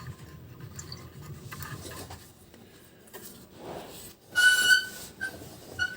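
Vacuum cleaner motor turned by hand, its shaft turning stiffly: quiet rubbing and handling, then a short high squeak about four and a half seconds in and two brief chirps at the same pitch after it.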